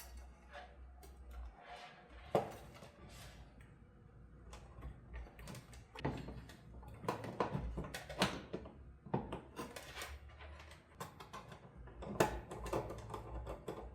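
Irregular knocks, clicks and short scrapes of hard parts being handled and fitted together, over a steady low hum.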